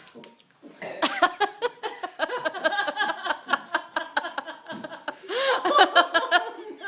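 Hard, rapid laughter starting about a second in and running on, loudest a little past the middle.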